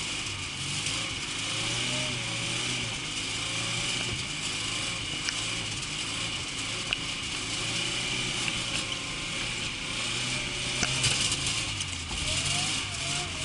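VAZ Zhiguli's eight-valve four-cylinder engine running as the car is driven, its note rising and falling.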